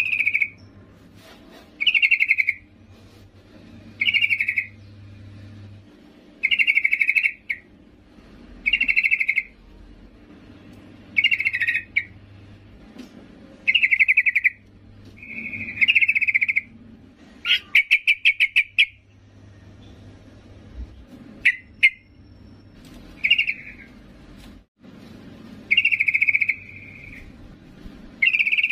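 Yellow-vented bulbul (trucukan) female giving short bubbly calls, one about every two seconds, with a faster stuttering call a little past the middle. This is the female's call to a male, used as a lure to set males singing.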